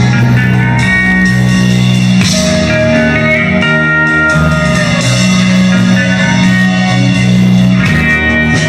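Instrumental break of a rock song: electric guitar and bass playing sustained notes with a steady beat, no vocals.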